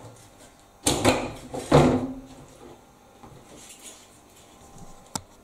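Washing machine top cover being slid back and lifted off its cabinet: two short scraping slides about a second in, then a single sharp click near the end.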